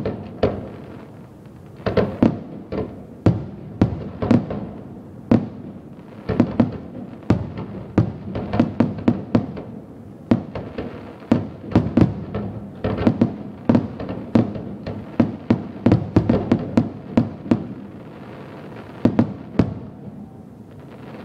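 Aerial firework shells bursting in quick succession, a steady barrage of sharp bangs, each trailing off in a short echo, at times several a second. There is a brief lull about three-quarters of the way through before the bangs pick up again.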